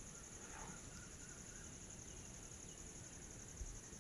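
Faint, steady high-pitched insect trill in the background, with a single low bump near the end.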